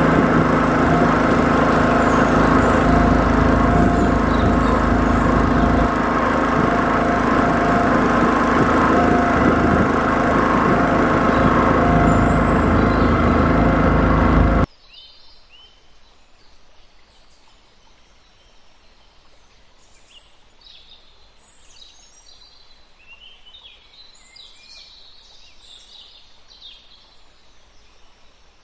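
A boat's engine running steadily with rushing noise, cut off abruptly about halfway through. It is followed by a faint chorus of birds calling, many short high chirps.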